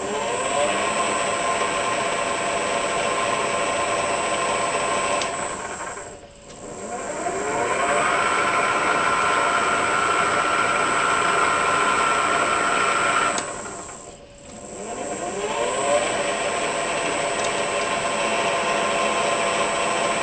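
Metal lathe motor on a variable-frequency drive, running with a steady high whine. Twice, about a third and two-thirds of the way through, a click is followed by the motor stopping briefly and then spinning back up with a rising whine. These are the forward and reverse passes of single-point threading, with the half nut left engaged and the direction switched at the selector.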